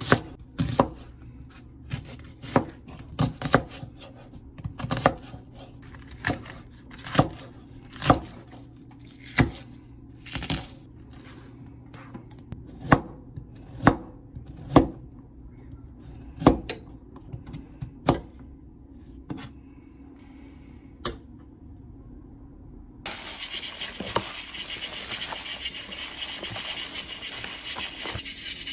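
Kitchen knife chopping onion, then carrot, on a plastic cutting board: single sharp strikes, about one a second. About 23 seconds in the chopping gives way to a steady rubbing and squishing as a gloved hand mixes raw beef with its marinade in a plastic container.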